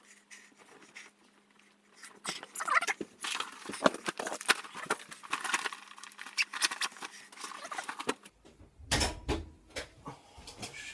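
Clothes rustling and small knocks and clicks as someone changes a T-shirt for a long-sleeved top, over a faint steady hum. The hum stops about eight seconds in, and a few dull thumps follow.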